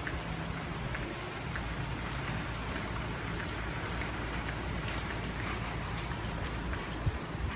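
Hurricane rain falling steadily, a constant hiss with scattered drops ticking, over a low rumble of wind. There is a short louder bump near the end.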